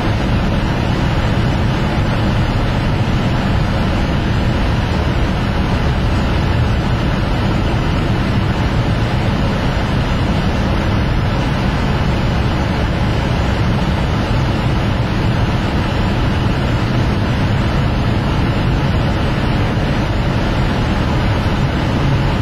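Steady rush of engine, tyre and wind noise heard inside a car driving along a narrow mountain road.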